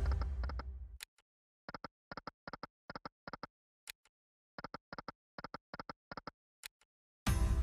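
Sound effects of the Royal Secrets online slot game: runs of short clicks in quick succession as the reels stop, between a loud, deep sound fading out at the start and another starting near the end as a new spin begins.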